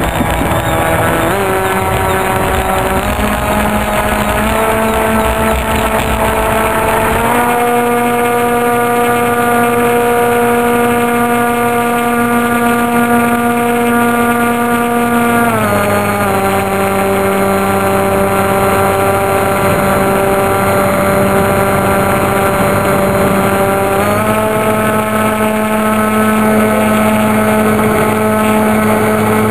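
Radio-controlled pusher model autogyro's motor and propeller, heard close up from its onboard camera, running at a steady pitch. The pitch steps up several times in the first eight seconds as it takes off, drops about halfway through as the throttle comes back, then rises again near the end.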